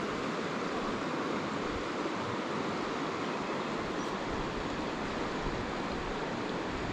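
Steady rush of a shallow river flowing over gravel, an even hiss with no distinct events.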